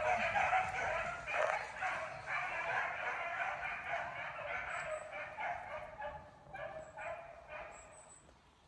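A pack of beagles baying together, many overlapping voices, in full cry as they run a rabbit; the cries thin out and fade over the last couple of seconds.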